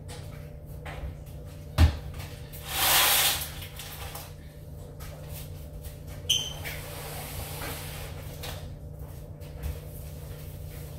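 Household handling sounds: a sharp knock about two seconds in, a hiss about a second long just after it, and a short ringing clink about six seconds in, all over a steady low hum.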